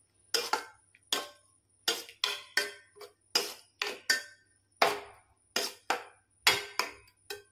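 Metal spoon knocking and scraping against a metal pan while stirring grated carrots in milk, about two or three short ringing clinks a second.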